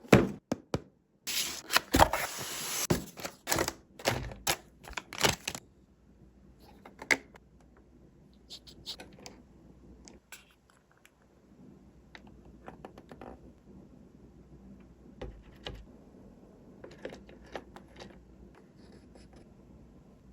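Packaging handled during an unboxing: a rush of scraping, rustling and clicking for the first few seconds, then scattered light clicks and taps.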